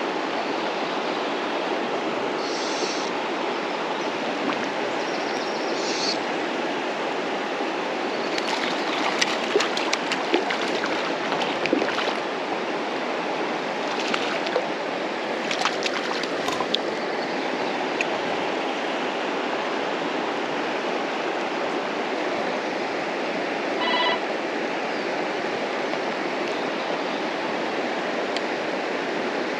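Steady rush of stream water, with two clusters of sharp clicks, about a third of the way and about halfway through.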